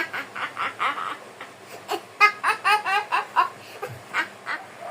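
A person's voice making a quick run of short, pitched cries without words, several a second, in bursts with brief gaps; the densest run falls in the middle.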